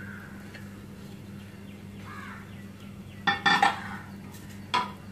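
Metal clinks of a pressure cooker and its lid being handled as the cooker is opened: a quick cluster of three ringing clinks about three seconds in, then one more near the end, over a steady low hum.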